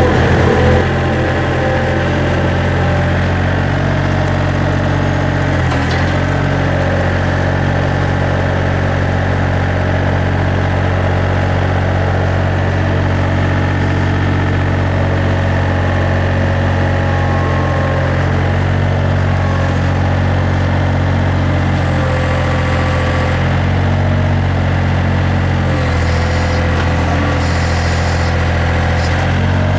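Diesel engine of a Mustang skid steer running steadily, its note shifting slightly about 22 to 26 seconds in.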